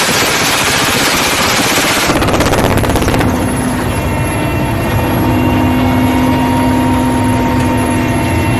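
Helicopter door-gunner's machine gun firing, ending in a fast burst about two to three seconds in. After that the firing stops and the helicopter's engine and rotor run on steadily with a whine.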